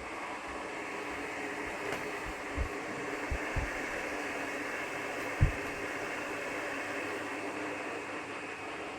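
Bladeless fan running with a steady rushing airflow hum. A few dull low thumps come through, the loudest about five seconds in.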